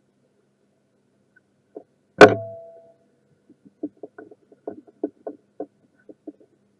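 Repair tools being handled on a workbench: a sharp metallic clank with a brief ringing about two seconds in, then a string of light clicks and taps.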